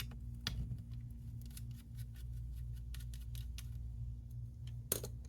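Irregular light clicks and ticks of small laptop parts being handled as the Wi-Fi antenna is taken out of a Dell G3 laptop, over a steady low hum. The loudest click comes near the end.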